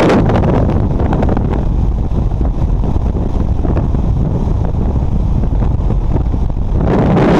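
Loud wind rushing over a camera's microphone in skydiving freefall, a steady roar that swells briefly at the start and again near the end.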